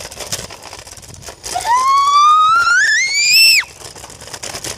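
A child's long, loud shriek that climbs steadily in pitch for about two seconds, starting about a second and a half in, then cuts off suddenly.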